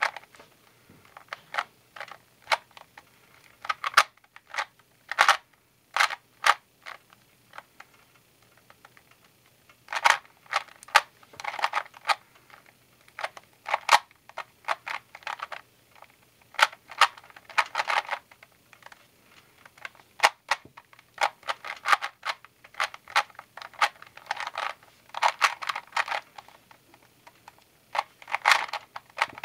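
A 3x3 Rubik's Cube being turned quickly by hand: plastic layers clicking and clacking in rapid bursts of turns, with short pauses between sequences.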